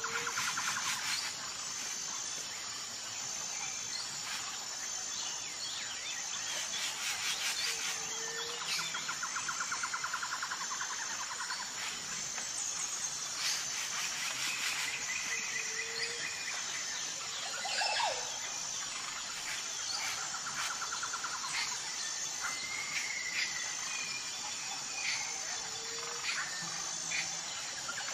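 Woodland ambience: birds calling with short trills and whistles over a high, evenly repeated insect chirp.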